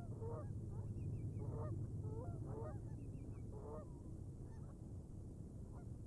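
Sandhill cranes calling, about five rolling calls in the first four seconds and then fading out. A small bird chirps faintly and a steady low hum runs underneath.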